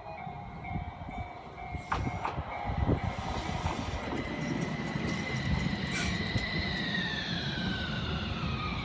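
Fukui Railway FUKURAM low-floor tram pulling in: its wheels knock over rail joints, then its traction motors whine and fall in pitch as it slows, over a low rumble of wheels on rail.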